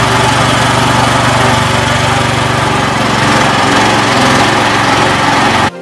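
A boat's motor running steadily at speed, loud and close, heard from aboard the boat. It cuts off suddenly near the end.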